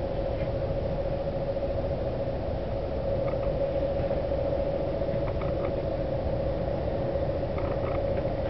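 Cabin noise inside a moving electric regional train at speed: a steady rumble of running gear on the track, with an even hiss and a steady hum held at one pitch.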